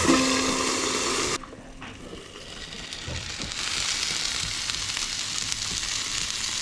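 Food sizzling and spitting in a hot frying pan. It is a steady hiss that drops sharply about a second and a half in, then builds back up over the next two seconds.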